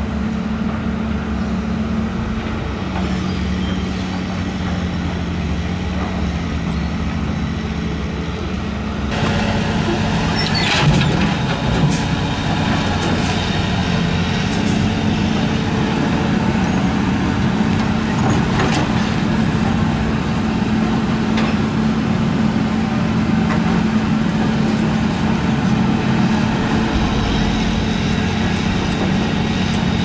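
Heavy earthmoving machinery with its diesel engine running steadily. About nine seconds in the sound changes abruptly and grows a little louder, with scattered knocks and clanks over the engine.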